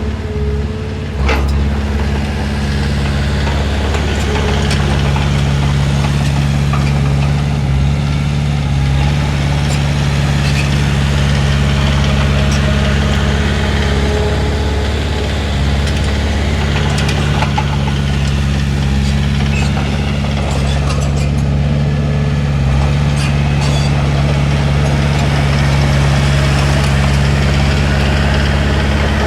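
Diesel engine of a crawler bulldozer running steadily under work, with a few faint knocks and clanks over it.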